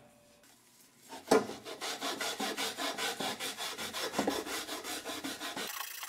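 Scotch-Brite abrasive pad scrubbed back and forth inside a welded aluminum tube, in scratchy strokes about three a second that start about a second in and become a lighter, even hiss near the end. It is scouring out the brown discoloration left where cutting oil cooked during welding.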